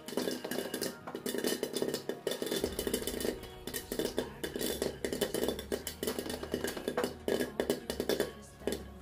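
Popcorn kernels popping rapidly inside a covered pan, a dense crackle of pops against the lid, with background music playing underneath.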